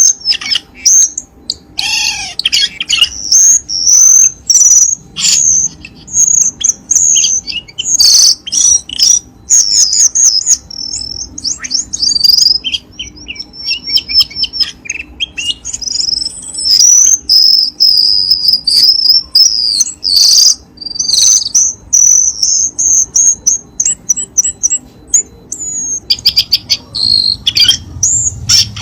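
Cucak keling birdsong played as a lure recording: a dense, unbroken run of rapid high-pitched chirps, whistled phrases and fast trills.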